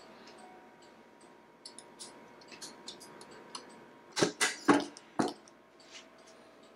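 Scattered light clicks, then a quick run of four sharp knocks about four to five seconds in.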